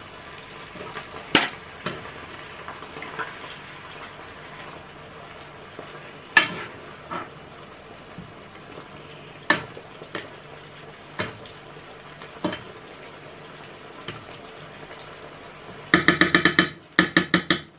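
Chicken pieces frying in a pan of butter and sauce with a steady sizzle, a spoon clinking against the pan now and then as they are stirred. Near the end, a loud, fast-pulsing buzz lasts about two seconds.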